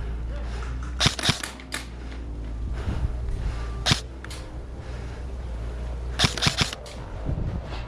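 Airsoft gun firing in short groups of sharp snapping shots: about three shots a second in, one or two near four seconds, and a quick string of four or five just after six seconds, over a steady low rumble.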